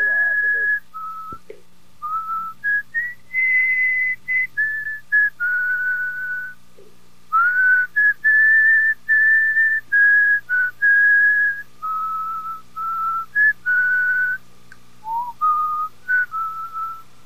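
A woman whistling a slow tune, one clear note at a time with short breaks between phrases, over a faint steady low hum.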